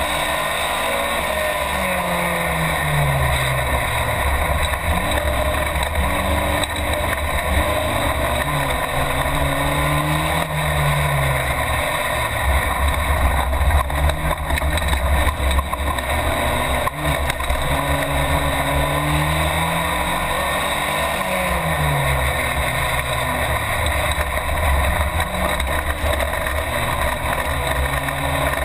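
Race car engine heard from inside the cockpit, its revs climbing and dropping again and again as it is driven hard through the gears, over a constant low rumble and road noise.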